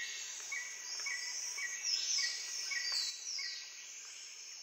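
Rainforest ambience: a steady high insect drone with several falling sweeps in the middle, and a short call repeated about twice a second that stops about three-quarters of the way through.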